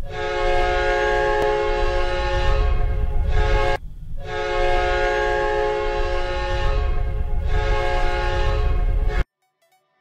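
Ice hockey goal horn sounding two long blasts of several notes at once, the first about four seconds, the second about five, over a low rumble; it cuts off suddenly about nine seconds in.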